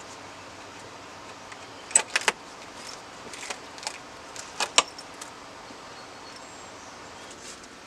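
Sharp clicks and snaps of plastic interior trim being worked loose, three in quick succession about two seconds in and two more a little before the five-second mark, with lighter ticks between.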